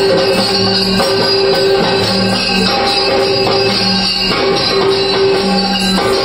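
Loud live festival music led by jingling percussion over a steady held tone, with a lower note that comes back about every second and a half.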